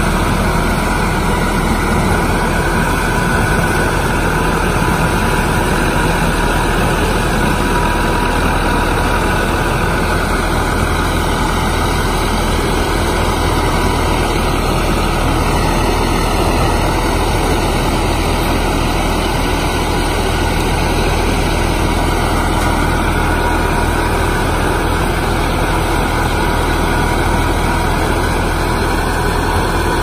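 Sugarcane harvester's engine running steadily at a constant pitch while the machine works through standing cane, a low hum under an even wash of mechanical noise.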